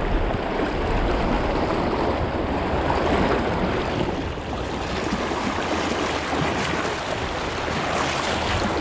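Fast river water rushing and splashing over rocks in a riffle, heard close at hand as a steady rush.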